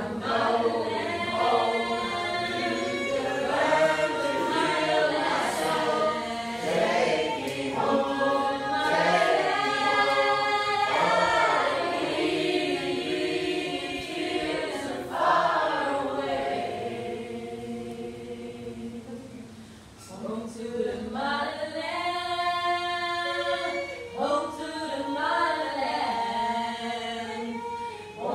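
A group of people singing together, several voices at once. The singing fades down about two-thirds of the way through, then comes back up.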